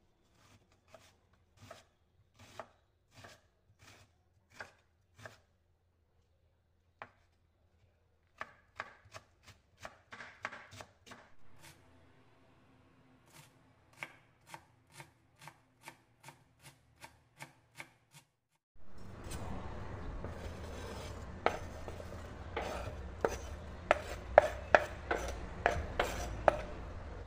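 Kitchen knife cutting red cabbage on a wooden cutting board. Even slicing strokes come first, then a short pause, then steadier strokes about two a second. In the last third the strokes are louder and irregular, over a steady background noise.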